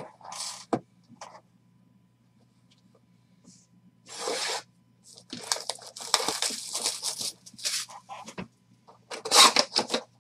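Plastic shrink wrap being torn and peeled off a sealed cardboard box of trading cards, in irregular crinkling, scraping bursts that grow loudest near the end, as the box lid is opened. Before that, a couple of brief handling noises and a quiet pause.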